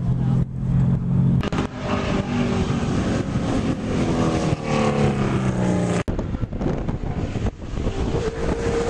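ARCA stock car's V8 engine running at speed around a short oval track, its pitch rising and falling as it goes through the turn. The first second or so holds a steady, lower engine note.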